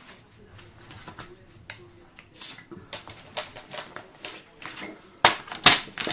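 Small scattered clicks and taps of paper and crafting tools being handled on a work table, with two sharp, louder knocks near the end.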